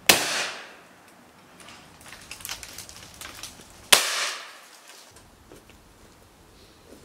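Two shotgun shots about four seconds apart, the two barrels of a Felix Sarasqueta over-and-under fired one after the other at clay targets. Each is a sharp bang that rings away over about half a second, with faint scattered clicks between them.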